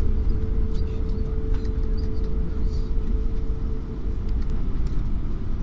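Cabin noise inside a Lufthansa Airbus A321 rolling on the ground after landing: a steady low rumble with a thin steady hum that stops about four and a half seconds in.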